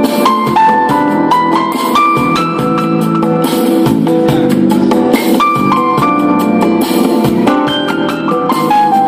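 Instrumental passage of a pop song cover: a keyboard melody over a steady drum beat, with no singing.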